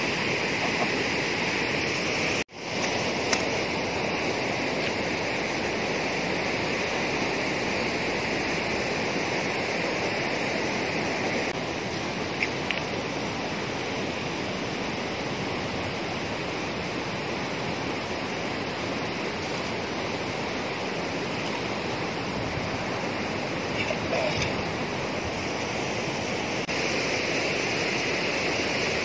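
Steady rush of fast-flowing, churning water pouring out of a reservoir tank that is running high after rain. The sound cuts out for an instant about two and a half seconds in.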